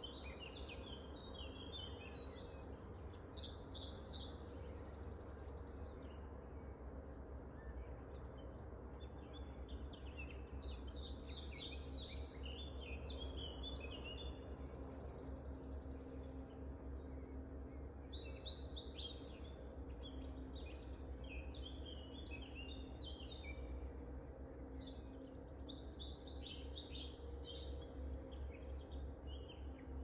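Songbirds singing: bursts of quick, bright chirping phrases separated by short pauses, with a high held note twice. A steady low hum runs underneath.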